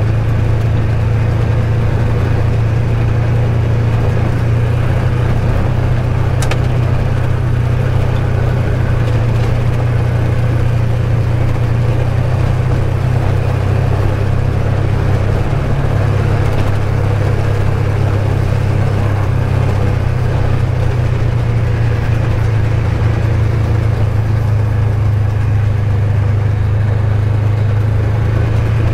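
ATV engine running steadily while riding a trail, a constant low hum with no big changes in speed.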